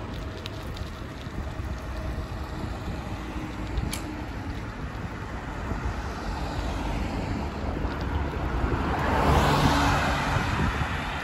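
Street traffic of passing cars heard from a bicycle, over a low rumble of wind on the phone's microphone. One car passes close about nine seconds in, its tyre and engine noise swelling and then fading.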